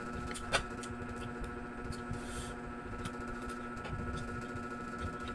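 Close-up eating sounds: chewing, with scattered light clicks of wooden chopsticks and a brief soft hiss about two seconds in, over a steady low hum.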